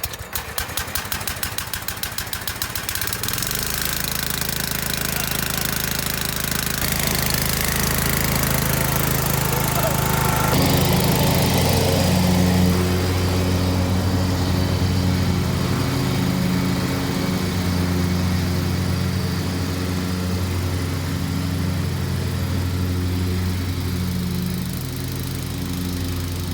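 Riding mower's 16 hp Kohler Command engine turning over on the starter for about three seconds, then catching and running steadily. It shifts in pitch and loudness a few times as it runs. It starts now that the broken ignition-coil wires have been repaired and it has spark.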